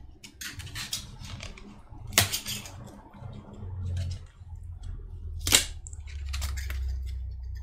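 Flat metal pry tool working a glued metal plate off the back of a MacBook Pro trackpad: a string of small cracks and clicks as the adhesive gives, with two louder sharp snaps, about two seconds in and about five and a half seconds in.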